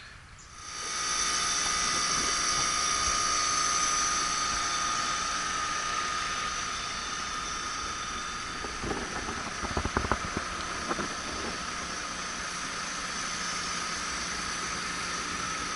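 A motor-driven machine spins up about a second in and then runs steadily with a high whine and a strong hiss. A few knocks come in the middle.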